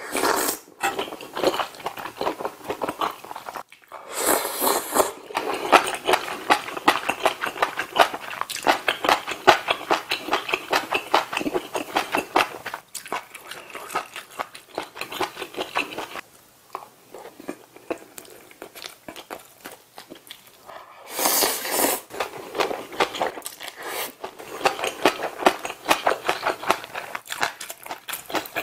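Close-miked eating: ramen noodles from budae-jjigae slurped in short loud bursts at the start, about four seconds in and again after about twenty seconds, with steady wet chewing and quick mouth clicks between.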